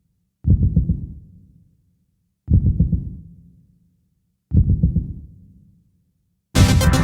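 Three low, booming heartbeat-like thuds about two seconds apart, each fading away, opening an electronic dance-pop track. Near the end the full dance beat comes in suddenly.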